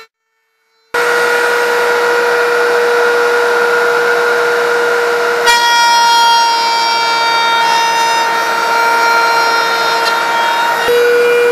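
About a second of silence, then a woodworking power tool running with a loud, steady high whine. Its pitch pattern changes abruptly about halfway through and again near the end.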